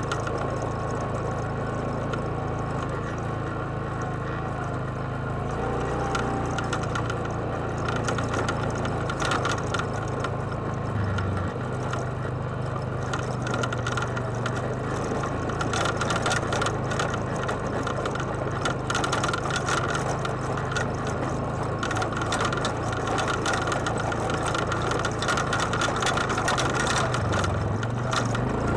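ATV engine running steadily at low revs on a downhill trail ride, its note shifting about a third of the way in and again near the end, with tyres crunching and clicking over loose rock and gravel.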